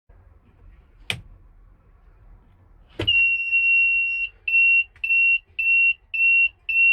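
Electronic alarm buzzer: a sharp click, then a second click as a steady high-pitched tone starts. The tone holds for about a second, then breaks into even beeps about twice a second.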